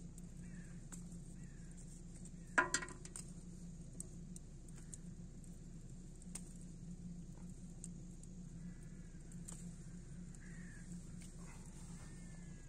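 Faint bird calls: a few short chirps early on and thin whistled, gliding calls in the second half, with one short, louder animal call in two quick pulses about two and a half seconds in.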